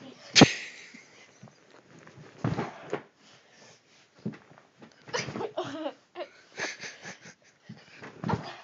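A boy flopping onto a bed and pushing back up. There is a sharp thump about half a second in, with bursts of bedding rustle and breathy laughter after it.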